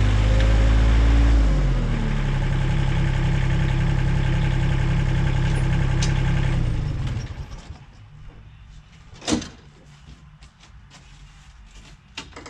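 Bobcat X320 mini excavator's diesel engine dropping from high revs to idle about a second and a half in, running steadily at idle, then shut off about seven seconds in. A single sharp knock follows a couple of seconds later, with a few light clicks near the end.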